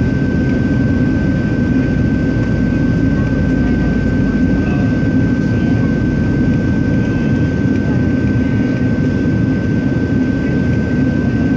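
Steady in-flight cabin noise inside a Boeing 737-700: the roar of its CFM56-7B turbofan engines and the air rushing past the fuselage, with a thin steady whine above it.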